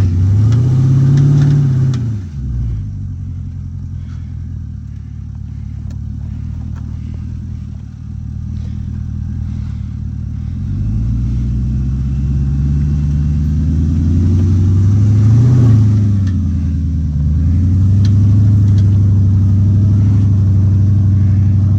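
Lifted 2008 Porsche Cayenne's engine revving as it works to climb a steep dirt hill after getting stuck. The revs rise briefly at first, then drop to a quieter, lower run. About halfway through they climb again and stay high, with a short dip near the end.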